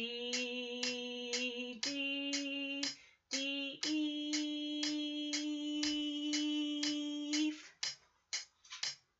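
A woman singing the note names of a French horn exercise on held pitches, ending on a long note held about three and a half seconds. A steady ticking of about two and a half ticks a second runs under the singing and continues after it.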